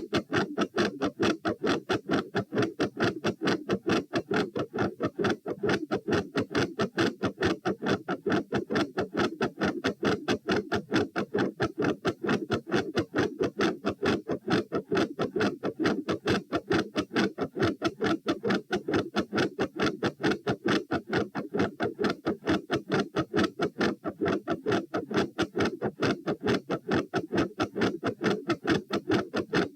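Heart sounds recorded at the chest over the pulmonic area: a fast, steady heartbeat of about 132 beats a minute, each beat split into several close thuds. The uploader labels them a third heart sound and a fixed split second sound with a murmur.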